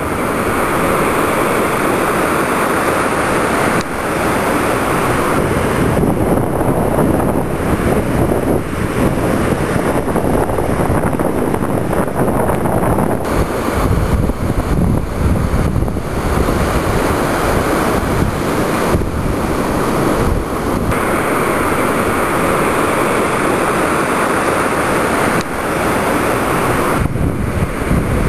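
Ocean surf breaking and washing up the beach, a steady rush that swells and eases every few seconds, with wind noise on the microphone.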